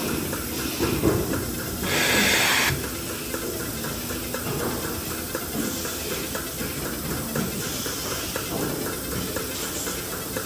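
Dairy milking-parlour machinery running: a steady hiss of vacuum and air with fast, continual clicking from the milking units. About two seconds in, a short, louder burst of hissing air.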